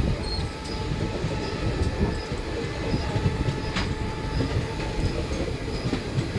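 Indian Railways passenger train rolling past: a steady rumble of coaches on the track, with faint wheel squeal and a few light clicks.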